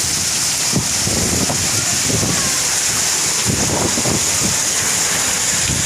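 Heavy rain pouring in a steady hiss, with strong wind gusting against the microphone in irregular low rumbles.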